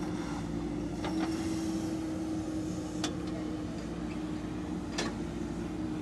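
JCB 3DX backhoe loader's four-cylinder diesel engine running steadily under load as the machine works, with a few sharp knocks about a second in, three seconds in and five seconds in.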